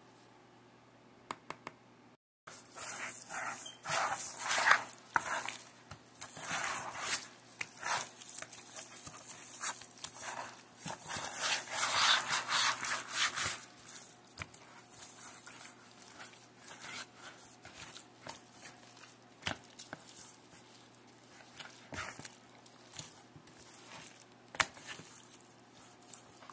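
Gloved hands kneading and rubbing seasoning into raw chicken leg quarters in a bowl: irregular wet squishing, rubbing and light slaps. It starts about two seconds in and is busiest in the first half.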